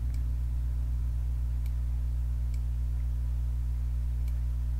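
A steady low hum, with four faint clicks of a computer mouse spread across it.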